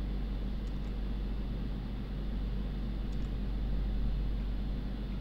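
Steady low hum and hiss, with two faint double clicks from a computer mouse, one under a second in and one about three seconds in.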